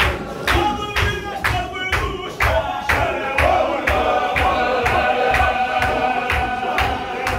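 Men's Qadiri Sufi zikr: a group of male voices chanting and singing in unison, held sung notes over a steady beat of stamping feet, about two to three thuds a second.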